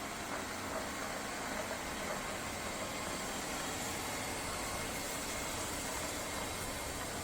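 Lefant M210 Pro robot vacuum running, a steady hiss from its suction fan with faint high tones over it.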